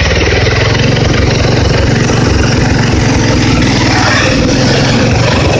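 Bolens 1220 garden tractor's 12 hp Tecumseh engine running steadily as the tractor drives across gravel.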